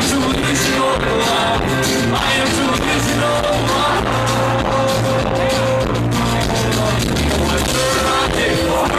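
Rock band playing live and loud, with singing over guitars, bass and drums.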